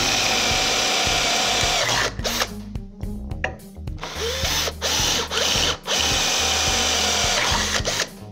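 Drill-driver with a freshly sharpened 5 mm twist bit boring into sheet steel. The motor runs steadily in spells, stops about two seconds in, starts again about halfway through, and pauses briefly again near six seconds.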